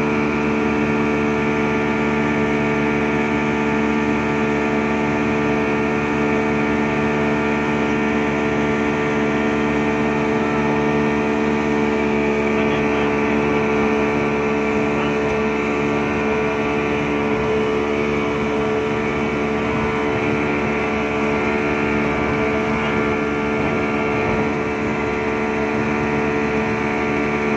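Yamaha 200 hp outboard motor running steadily at high speed, driving a loaded speedboat, its engine note holding one even pitch over the rush of water and wake.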